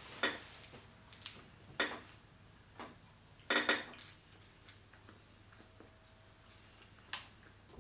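Roasted sweet chestnut shells cracking and snapping as they are peeled apart by hand. A series of short, sharp cracks comes mostly in the first four seconds, with one more near the end.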